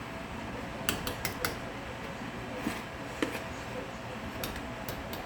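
A few light, scattered clinks and taps of kitchen utensils against cookware while brownie batter is handled, over a faint steady hum.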